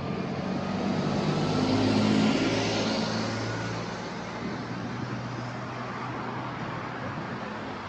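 A motor vehicle passes on the street, its engine and tyre noise growing to their loudest about two seconds in and then fading into steady traffic noise.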